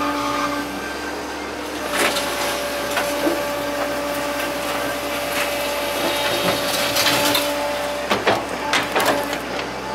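Excavator engine and hydraulics running steadily as the bucket digs and scrapes through soft, sandy topsoil, with sharp knocks and clanks about two seconds in and a cluster of louder ones near the end.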